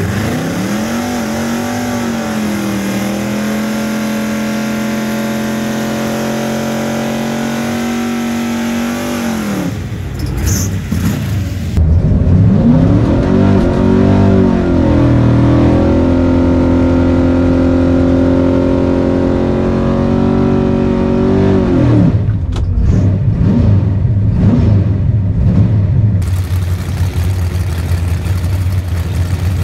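Naturally aspirated 606-cubic-inch big-block Chevy V8 in a 1968 Chevelle drag car, revved up and held at a steady high pitch for several seconds, then let fall. It is revved up and held again, then blipped a few times before settling to a steady idle near the end.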